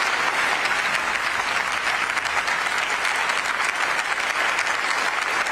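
Steady, sustained applause from a large audience clapping together.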